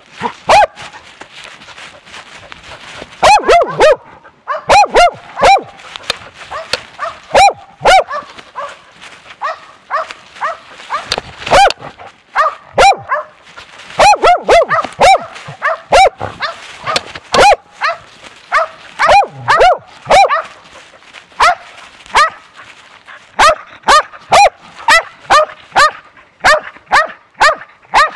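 Bear-hunting dog barking over and over in quick, irregular runs, very close, from a harness microphone on the barking dog itself, with brush rustling between barks. This is bay-barking at a bear.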